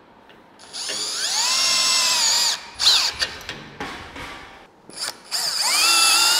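Cordless drill running in two bursts, each spinning up to a steady high whine, while fastening aluminum railing. A few sharp clicks and knocks come between the bursts.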